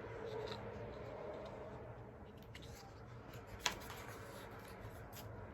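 Faint rustling and light taps of photo cards and printed pages being handled, with one sharper click a little over halfway through.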